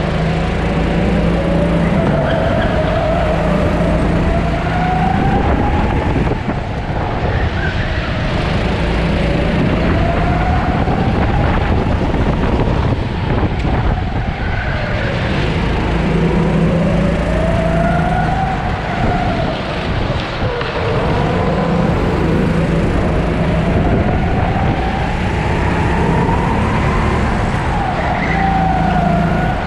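Sodi 270cc four-stroke rental kart engine heard onboard, its note climbing as it accelerates and dropping as it comes off the throttle, over and over through a lap.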